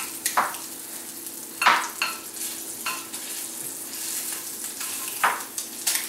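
Perch fillets sizzling steadily as they fry in a skillet, with a utensil scraping the pan a few times as they are stirred and turned.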